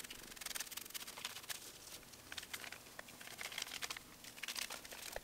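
Aluminium hair-colouring foil crinkling as it is handled and folded over a bleached strand of hair, a steady run of soft crackles.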